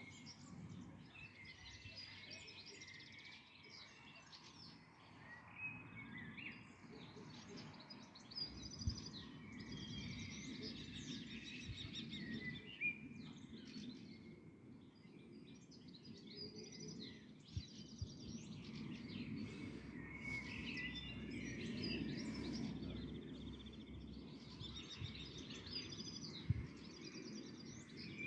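Several songbirds chirping and trilling, their calls overlapping, over a faint low rumble of outdoor background noise. A few brief soft knocks are also heard.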